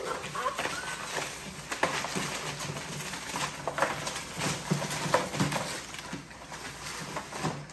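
XL bully puppies moving around a newspaper-lined wire crate: paws scuffing and rustling the newspaper, scattered clicks against the crate, and a few short whines and grunts from the pups.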